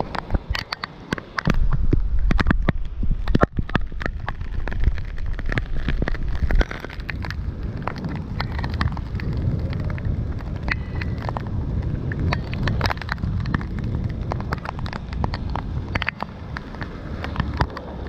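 Heavy rain striking a handlebar-mounted camera: raindrops tick sharply on the housing over a noisy low rumble of wind on the microphone. The rumble is heavier for several seconds and then drops off suddenly, about six seconds in.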